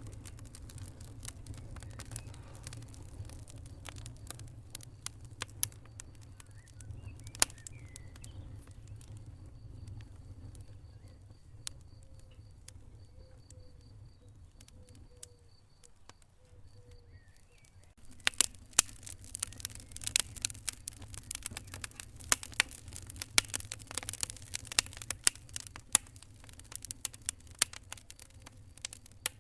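Wood fire crackling with irregular sharp pops over a low steady rumble. The crackling grows much denser and louder about two-thirds of the way in.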